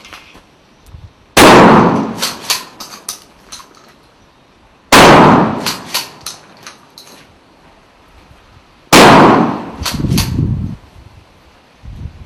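Three shotgun shots about three and a half seconds apart, each a sharp blast that trails off, followed by a few smaller sharp clicks and clatter.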